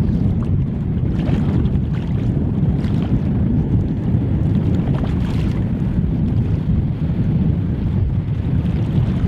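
Wind buffeting the microphone in a steady low rumble, with a few faint splashes from a hooked pink salmon thrashing at the surface.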